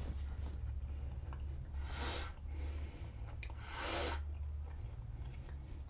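Two sharp breaths through the nose, about two seconds apart, from someone chewing gummy fruit snacks.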